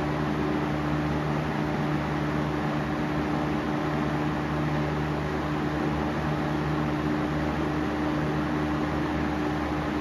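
Lakewood model 200 20-inch box fan (1995) running: a steady rush of air with an even hum from the motor under it.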